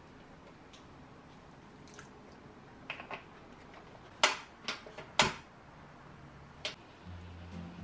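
A few sharp taps and drips in a stainless steel saucepan as water is added to the sugar, the loudest three coming close together about four to five seconds in. Soft background music starts near the end.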